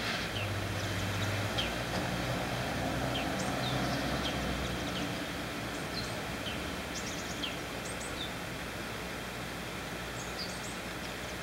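Steady background hiss and low hum, with faint, short, high chirps of small birds scattered throughout.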